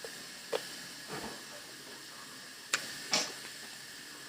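A few light clicks and clinks, as of utensils and dishes handled at a meal table, with a short noisier sound about three seconds in, over a steady background hiss.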